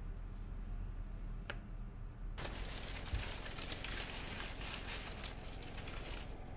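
Paper crinkling and rustling in the hands as a small picture frame is unwrapped from it. The dense crackle starts about two and a half seconds in and stops shortly before the end, over a low steady hum.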